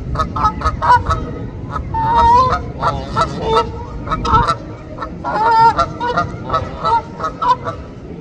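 Canada geese honking: a flock gives many short, repeated honks one after another, over a steady low rumble.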